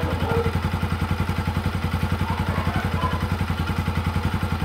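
Bajaj Pulsar NS200's liquid-cooled single-cylinder engine idling steadily, an even pulse of about a dozen beats a second. It is warming up, and its new radiator fan has not yet switched on.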